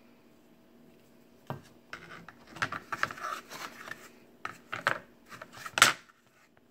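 A rigid Kydex knife sheath and a fixed-blade knife handled on a mat of wood slices: a string of scrapes, rubs and clacks as the sheath is lifted, turned over and set back down, starting after a quiet second and a half, with one sharp clack near the end.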